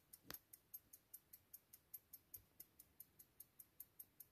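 IWC caliber 57 pocket watch movement ticking steadily, about five ticks a second: the lever escapement running. There is one stronger knock about a third of a second in.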